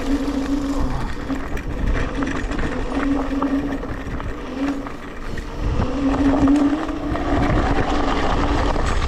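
Electric scooter motor whining at one steady pitch, cutting in and out several times as the throttle is worked on a slippery, muddy track, over a constant low rumble of riding.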